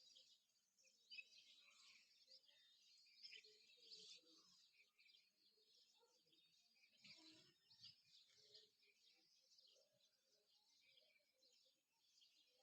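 Faint chorus of birds chirping and twittering, many short overlapping calls.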